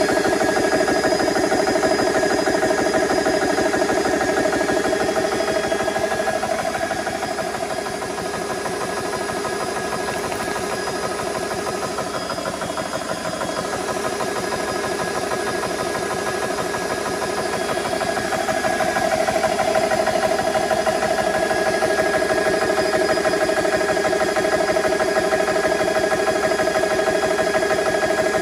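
GX Pump CS3 portable high-pressure air compressor running steadily, its electric piston pump beating at a fast, even rhythm with a steady hum. It is filling an HPA air tank.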